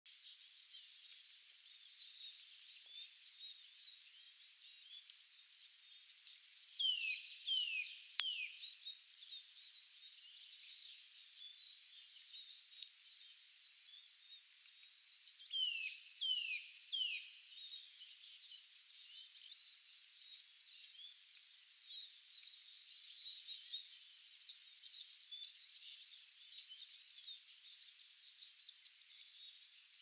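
Woodland birdsong: many small birds chirping and twittering at once, and twice a run of three loud down-slurred whistles from one bird, the first run about seven seconds in, the second about sixteen seconds in. A single sharp click sounds about eight seconds in.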